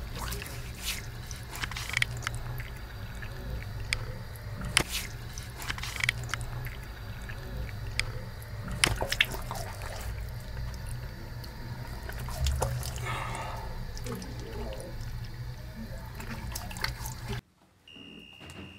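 Water running from a bathroom tap into a sink, with splashing and dripping as hands and face are washed under it, over a steady low hum. Near the end it cuts off suddenly to quiet, and a short high steady tone sounds.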